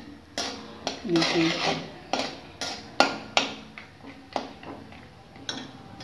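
A slotted metal spatula scraping and clinking against a metal kadhai while stirring chopped cashews frying in ghee. It gives a string of sharp clinks and short scrapes, with a longer scrape about a second in.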